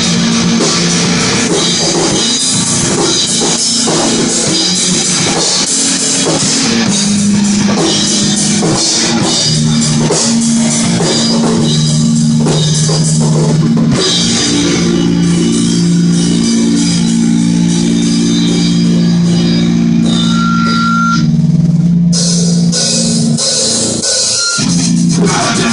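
Rock music with a drum kit and guitar playing loudly and steadily, over held low notes.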